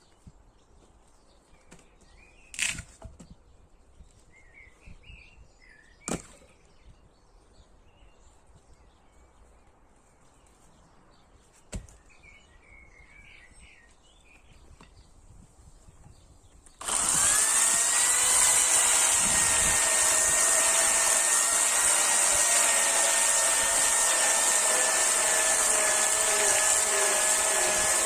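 Birds chirping in a quiet stretch, with three sharp knocks. About seventeen seconds in, a chainsaw starts up abruptly and runs loud and steady at an even pitch.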